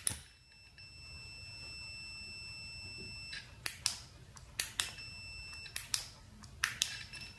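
A digital multimeter's continuity beeper sounds a steady high beep while a flashlight's tail push-button switch is closed, stopping and starting again as the switch is clicked. Three beeps and several pairs of sharp clicks from the switch being pressed and released show it to be a plain on-off switch.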